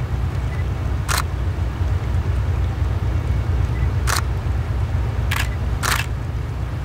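Distant three-section 3TE10M diesel locomotive hauling a loaded freight train under load: a deep, steady rumble from its 10D100 two-stroke diesel engines. Four sharp clicks come about one, four, five and a half and six seconds in.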